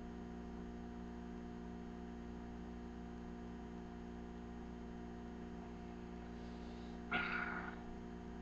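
Steady electrical hum of a webcam recording, with a brief voice-like sound about seven seconds in.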